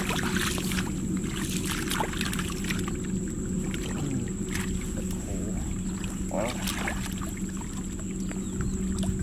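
Hands sloshing and patting wet mud and shallow water in short, scattered splashes, over a steady low motor hum.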